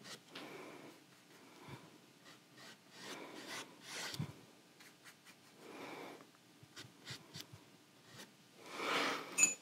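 Small paintbrush drawn along a canvas, laying acrylic paint on an outline: a few faint, soft brushing strokes with light taps, the loudest stroke near the end.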